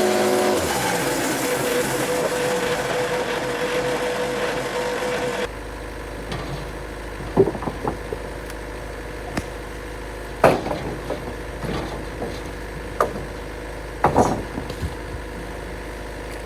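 Wood-Mizer LT70 sawmill running: a loud rush with a steady whine for about five seconds, then an abrupt change to a low steady hum with scattered sharp knocks and clatters.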